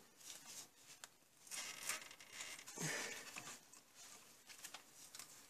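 Faint, irregular scraping and crinkling as work-gloved hands handle and cut into the transmission fluid return line.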